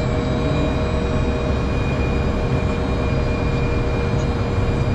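Cockpit noise of a Cessna Citation M2 taxiing: its twin Williams FJ44 turbofans running at low taxi power, a steady low rumble with a steady whine over it.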